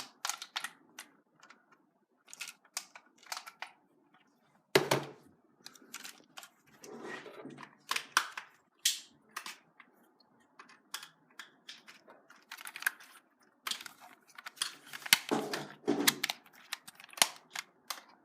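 Irregular clicks, taps and short rustles of hands handling a plastic toy car and its packaging.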